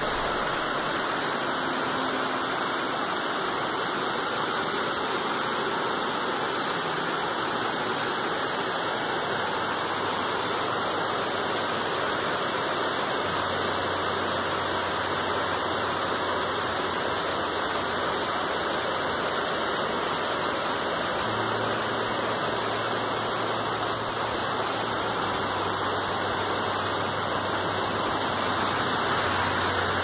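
Heavy rain falling steadily, an even, unbroken hiss of the downpour.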